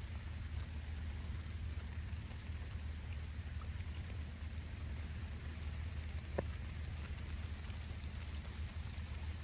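Storm runoff water pouring out of a drainage pipe, a steady rushing and splashing. One sharp tick about six seconds in.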